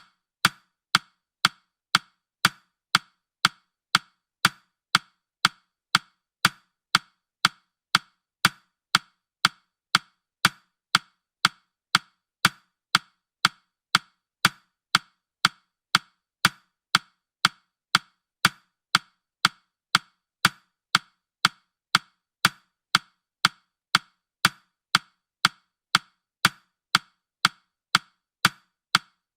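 Countdown timer's ticking sound effect: short, sharp clock ticks at an even pace of about two a second.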